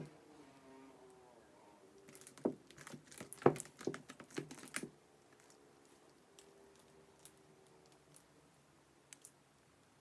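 Sticky, under-activated clear slime being stretched and squeezed by hand, giving a quick run of wet clicks and pops for about two and a half seconds, starting about two seconds in, then a few faint clicks.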